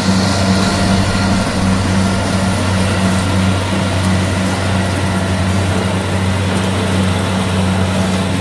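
Kubota combine harvester's diesel engine running steadily under load while it cuts ripe rice, a constant low drone.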